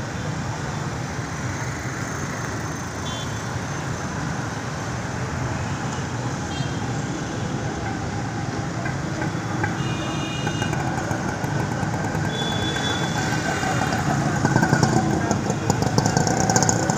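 Road traffic on wet asphalt: vehicles passing with a steady hiss from tyres on the wet road, and a few short horn toots through the traffic. It gets louder near the end as a vehicle passes close by.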